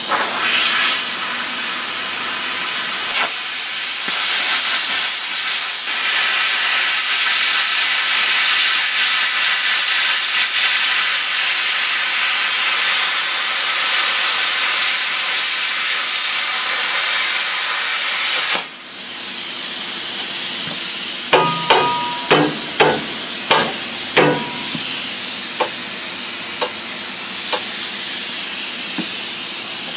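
Handheld plasma cutter hissing steadily as it cuts through a steel winch mount bracket coated in Raptor bedliner. The hiss drops out briefly about two-thirds through, followed by a quick run of sharp crackling clicks before it carries on.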